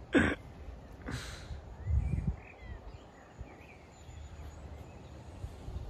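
A wedge chip shot on grass: the club brushes through the turf and strikes the ball about a second in. Faint bird chirps and a low wind rumble on the microphone follow.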